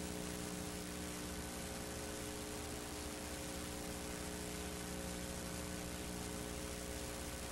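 Steady hiss with a low electrical mains hum, unchanging throughout: background noise of an old film transfer, with no other sound heard.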